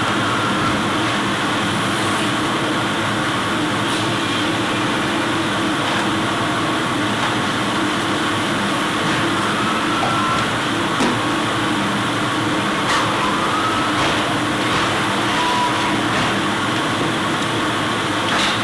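Industrial sanding machine for steel parts running steadily, with a constant hum and a few brief faint squeals and clicks.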